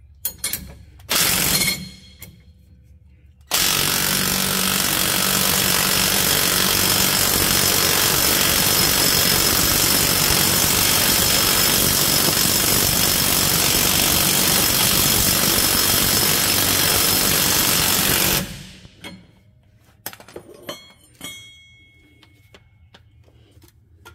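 Ryobi cordless impact wrench giving two short bursts, then hammering continuously for about fifteen seconds as it runs a nut down a U-bolt to snug the steering stabilizer bracket. It stops abruptly, and a few metal clinks of hand tools follow.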